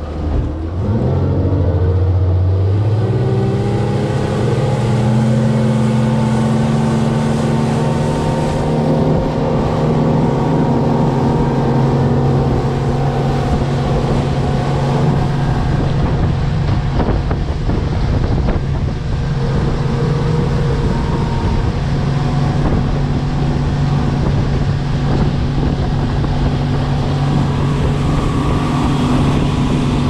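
Yamaha 300 four-stroke V6 outboard motor being throttled up, its pitch climbing over the first few seconds, then running steadily at planing speed. Wind and rushing water hiss under the engine.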